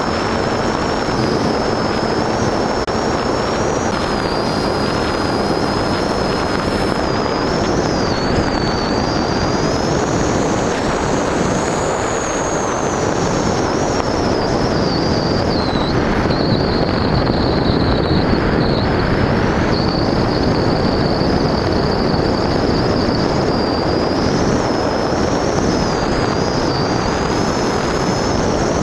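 Motor and propeller of an FPV model aircraft heard through its on-board camera: a high whine that drifts up and down in pitch with the throttle, over a heavy rush of wind noise.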